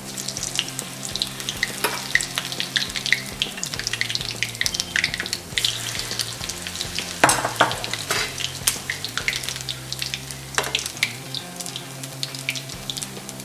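Semolina vada batter deep-frying in hot oil in a steel kadai: a dense, steady crackle of popping oil bubbles, with a couple of louder sharp pops about seven and ten and a half seconds in.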